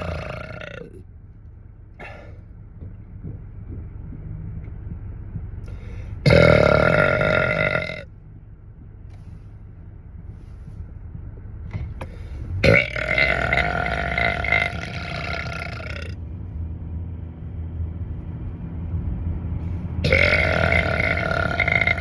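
A man's long, loud burps inside a car: one trails off in the first second, then three more come about six, thirteen and twenty seconds in, each a drawn-out belch held at a steady pitch. The first of these is the shortest and loudest, the second lasts about three seconds, and the last is still going at the end. A low steady rumble sits under the gaps.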